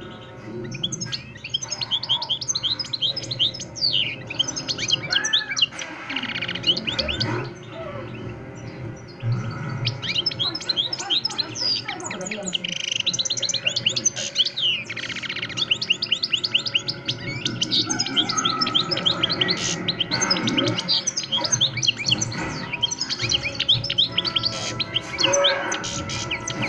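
A European goldfinch of the Extremaduran Montijo song line singing almost without a break: long runs of fast, repeated twittering chirps and trills, with only brief pauses.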